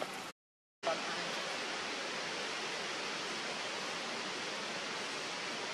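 Steady, even rushing background noise with no distinct events, broken about a third of a second in by a half-second dropout to dead silence.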